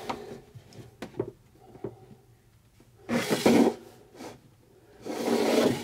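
Wooden plinth board being shifted and slid on the cabin floor: a few light knocks, then two scraping rubs, about three and five seconds in.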